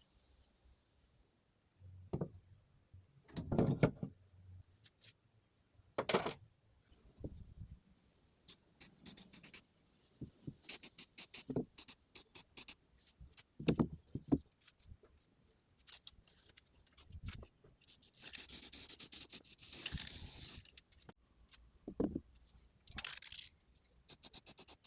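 Hard objects being handled on a work surface: scattered clicks and knocks, a few quick runs of rapid clicking, and a scraping rub lasting about three seconds, about three-quarters of the way through.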